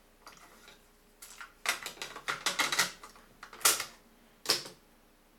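Akai GXC-39D cassette deck's cassette well and door being handled with the tape stopped: a string of sharp plastic clicks and clacks as the cassette is worked in the well, with two of the loudest knocks near the end.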